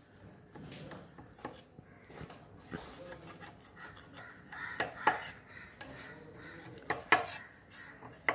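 Kitchen knife scraping and tapping against the inside wall of a metal tin as it is run around the edge of a steamed egg patty to loosen it, with a few sharp clicks of blade on metal, the loudest about five and seven seconds in.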